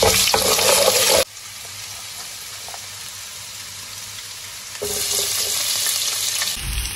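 Chopped garlic sizzling in hot oil in a stainless steel pot, stirred with a wooden spoon. The sizzle drops suddenly to a softer frying about a second in, then grows louder again near the end as sliced onions are dropped in.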